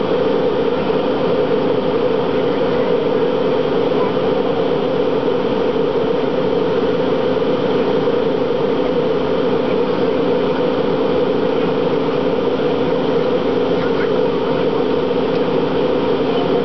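Steady jet airliner cabin noise in flight: a constant rush and drone of the engines and airflow, with a strong low hum and a few faint steady tones underneath.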